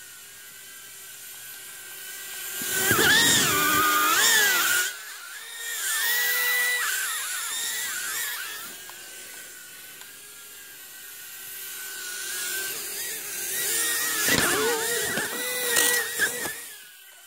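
Toy mini quadcopter's small electric motors and propellers whining, the pitch wavering and gliding up and down as the throttle changes. It grows much louder twice, about three seconds in and again from about fourteen seconds, with a few sharp knocks near the end.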